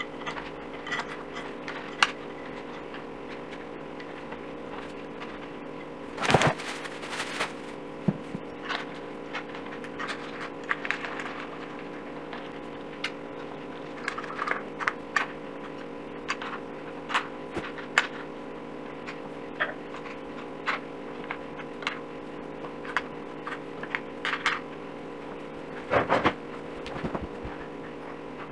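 Hand-assembling a dining chair: legs set onto the seat's mounting plate and screws turned in, giving scattered sharp clicks and taps with plastic wrap crinkling, over a steady hum. Two louder handling noises come about six seconds in and near the end.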